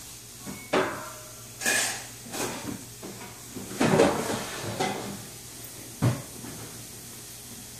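Handling noise of a phone being wedged among artificial Christmas tree branches and ornaments: a series of separate bumps and rustles, the loudest about four seconds in, with a last sharp knock about six seconds in.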